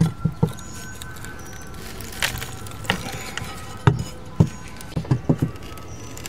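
A steel flat pry bar working the wooden brick mold off a window frame: irregular sharp knocks, clinks and cracks as the bar is driven in and the trim breaks away in little pieces.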